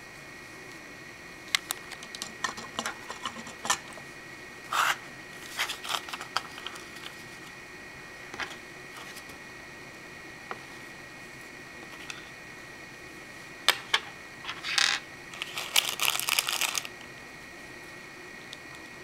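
Hard plastic Lego Bionicle parts clicking and knocking as the figure's limbs are handled and posed, with a few short rustles, over a steady faint whine.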